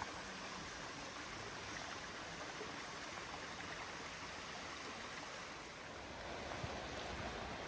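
Steady rush of running river water, a constant even noise.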